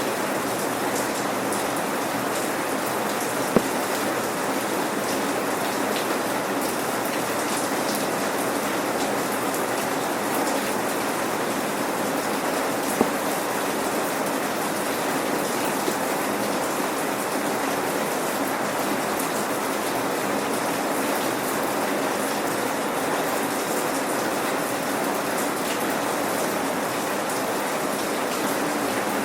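Steady rain without thunder: an even hiss of many raindrops falling, with two single sharper drop ticks, one a few seconds in and one near the middle.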